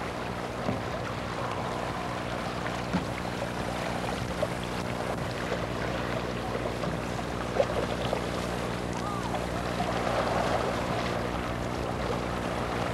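Canoe paddles sweeping through flat water in a two-person Canadian canoe: soft splashes and water gurgles, with one slightly sharper splash or knock about seven and a half seconds in, over a steady low hum.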